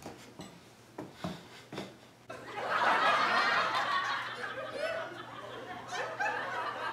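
A crowd of people laughing, starting suddenly a little over two seconds in and carrying on, after a few faint clicks.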